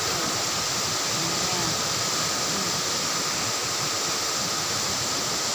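Steady rush of a river in flood, an even hiss with no breaks, with a thin steady high tone running through it and faint voices in the background.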